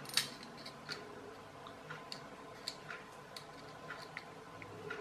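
Scattered light clicks and taps of small plastic parts as a clockwork toy car's gear train is handled and a gear on a blue plastic shaft is worked off beside the coiled spring. The clicks come at uneven intervals, the sharpest just after the start.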